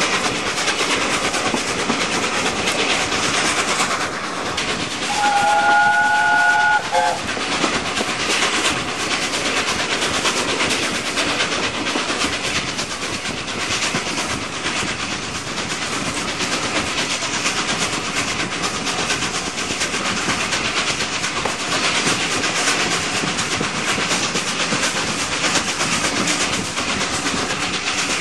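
Steam train running at speed, heard from an open carriage window: steady wheel clatter over the rail joints and wind rush. About five seconds in, the steam whistle of the LNER Peppercorn A1 Pacific locomotive Tornado blows once for about two seconds.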